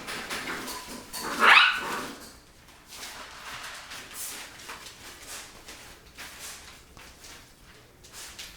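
Rottweiler puppies play-fighting: one loud, high cry from a puppy about a second and a half in, then quieter scuffling and clicking.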